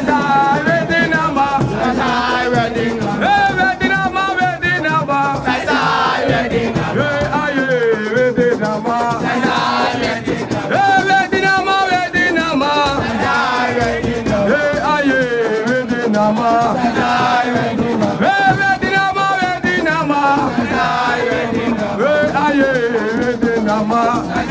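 Music: singing voices with a shaken rattle keeping the rhythm.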